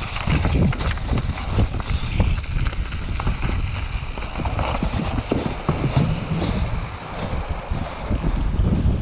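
Mountain bike descending a rocky stone-pitched trail: tyres drumming over the stones, with many quick knocks and rattles from the bike and wind buffeting the microphone.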